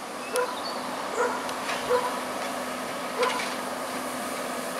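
A dog barking four times, short sharp barks at uneven intervals, over the steady hum of JCB 418S wheel loaders working the maize silage clamp.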